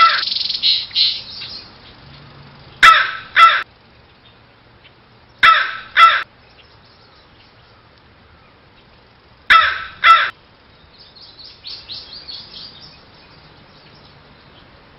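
Crow cawing: three pairs of loud caws, the two in each pair about half a second apart and the pairs a few seconds apart.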